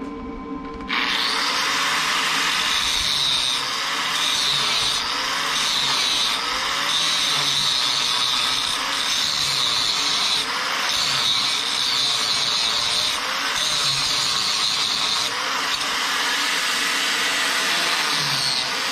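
Handheld angle grinder starting up about a second in and grinding steel. The bright grinding noise comes and goes every second or two, and the motor's pitch wavers as the disc is pressed into the metal and eased off.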